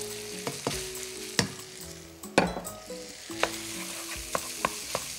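Minced beef sizzling in hot fat in a pot as it is stirred in with a wooden spoon, the spoon knocking against the pot with sharp clicks that come more often near the end. The meat is being browned in the fried onion, garlic and bacon, the start of a beef ragù.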